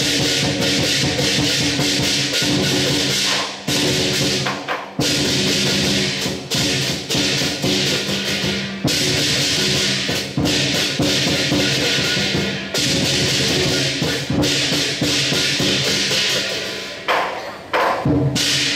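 Chinese lion dance percussion: a large drum with clashing cymbals and a gong, played loudly and continuously with a few short breaks.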